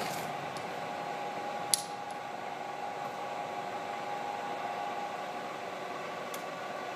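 Bridgeport Series I vertical mill head running steadily in high gear with the power quill feed engaged: an even machine hum with a held whine. A single sharp click comes a little under two seconds in.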